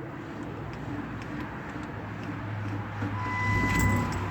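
A car being started: about three seconds in, a steady low engine hum comes up along with a steady electronic chime tone.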